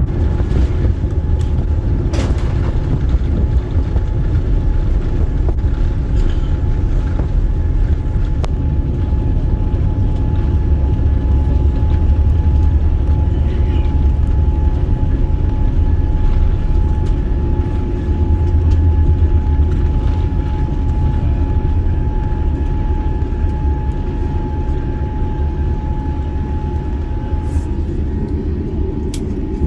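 Cabin noise inside a Boeing 787-9 Dreamliner: a loud, steady low rumble of the airliner, with a faint steady whine through most of it.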